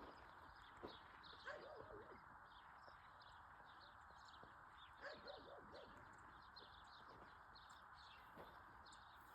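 Faint open-country ambience: a steady high hiss with many small bird chirps scattered throughout, a few soft knocks, and two short runs of quick repeated notes about a second and a half in and again about five seconds in.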